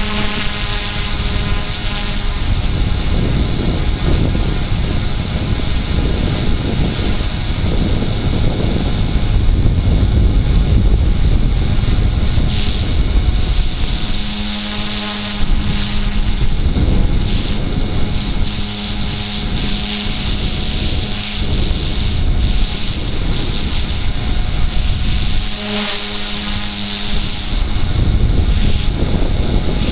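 E-flite Blade mCPX micro RC helicopter in flight, heard through a keychain camera mounted on it. Its HP05 brushless main motor and dual tail motors whine steadily at a high pitch over the loud rush of the rotor blades, and a lower hum comes and goes a few times.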